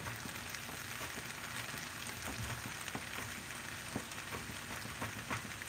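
Saltfish, shrimp, okra and broccoli sizzling in a frying pan on a hot electric stove: a steady sizzle with many small crackles and pops.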